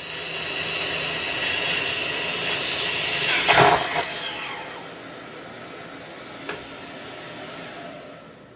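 Makita track saw running and cutting into a maple leg blank as it is spun in the jig by a drill, with a loud clatter about three and a half seconds in as the jig's end piece unscrews and the workpiece kicks. After that the noise drops and runs on more quietly, with a single click, before fading.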